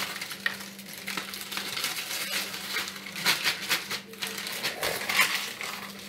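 Crisps rattling and crackling as they are tipped from a crisp packet into a plastic food bag, with the packet rustling: a run of small sharp clicks. There are louder clusters about three and five seconds in.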